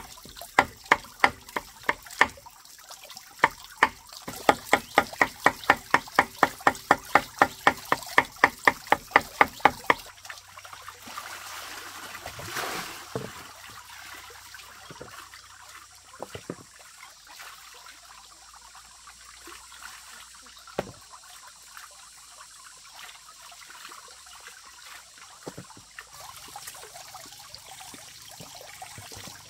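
Cleaver chopping pork fat on a round wooden chopping block, a steady run of about three strikes a second that stops about ten seconds in. Then water splashing and trickling as hands wash in a bucket.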